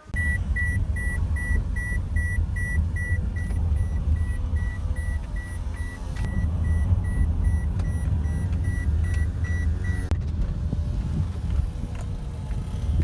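Steady low vehicle rumble with a rapid high electronic beeping, about three beeps a second, that stops about ten seconds in.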